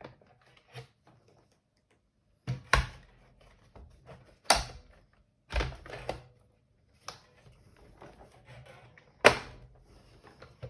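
Hard plastic parts of a robot vacuum knocking and clicking as they are handled and fitted back together: about five separate sharp knocks a second or two apart, the loudest about nine seconds in.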